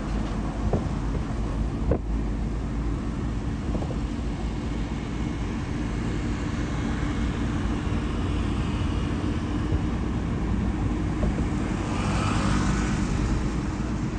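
Car driving on the road: a steady low road and engine rumble, with a brief swell of hiss about twelve seconds in.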